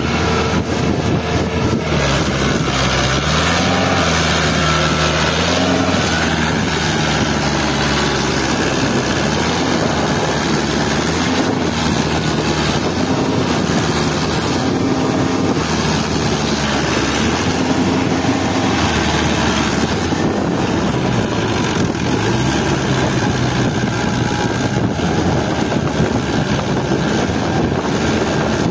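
Fiat 640 tractor's four-cylinder diesel engine working hard under load, its revs rising and falling again and again as the tractor struggles through deep mud.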